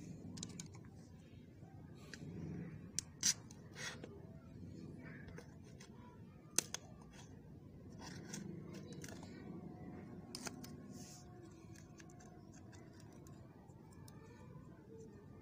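Pliers working at the foil seal on a new plastic engine-oil bottle: a few sharp clicks and snaps as the seal is pierced and torn off, with light scraping and crinkling between them.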